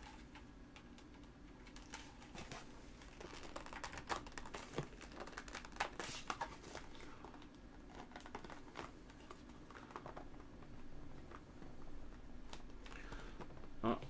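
Plastic external hard drive enclosure being handled and pressed along its seams, giving irregular light clicks, taps and creaks as the case is worked at to find how it opens.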